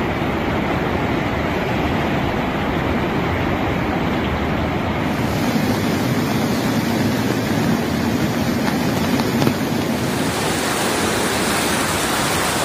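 Swollen river of muddy floodwater rushing and churning in a loud, steady torrent. The tone of the rush shifts about five and again about ten seconds in.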